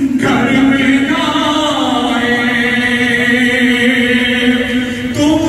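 A man chanting a noha, a Shia lament, in long held notes that slide slowly between pitches, with a step up in pitch near the end.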